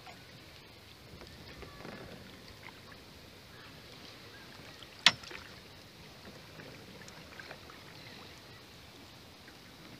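Quiet paddle strokes from a packraft: the paddle blade dipping and dripping in calm river water. A single sharp click about halfway through.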